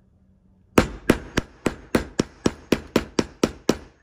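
Claw hammer with a wooden handle tapping a three-prong metal T-nut into pilot holes in a wooden block. About a dozen quick, even strikes, roughly four a second, starting about a second in.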